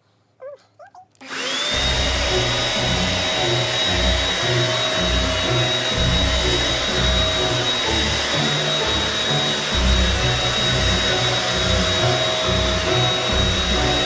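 Quantum X water-filtration vacuum cleaner switched on about a second in: the motor spins up with a rising whine, then runs steadily with a high whine while it is worked over a rug.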